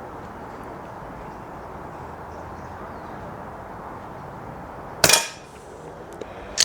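A single shot from a Snowpeak PP20 .177 pre-charged pneumatic air pistol about five seconds in: a sharp crack with a short ring-off. Steady background hiss comes before it, and a smaller click follows near the end.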